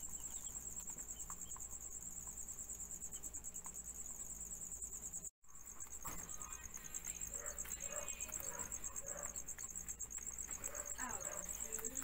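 Crickets chirping in a fast, steady trill, with a brief dropout about five seconds in.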